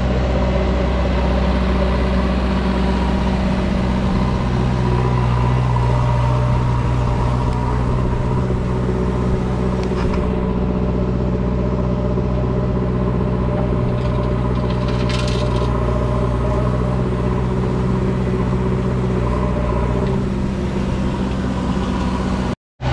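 Diesel engines of a farm tractor and a backhoe loader running steadily side by side, a deep continuous engine hum. The engine note shifts slightly around four seconds in and again around twenty seconds in, and the sound cuts out briefly just before the end.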